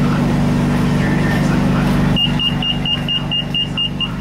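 BTS Skytrain door-closing warning: nine short high beeps in quick succession, about four a second, starting about two seconds in, over the steady low hum of the train standing at the platform. The beeps signal that the doors are about to close before departure.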